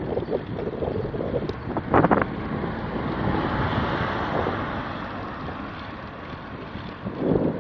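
Wind buffeting the microphone of a camera on a moving bicycle, with a short clatter about two seconds in.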